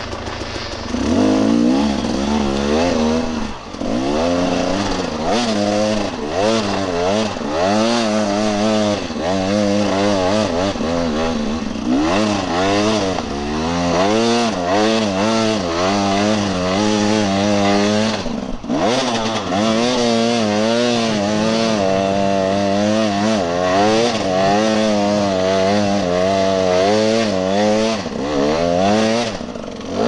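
Dirt bike engine being ridden off-road, revving up and down continuously, its pitch rising and falling every second or so as the throttle is worked. It climbs from a lower note about a second in and briefly drops off about two-thirds of the way through before revving again.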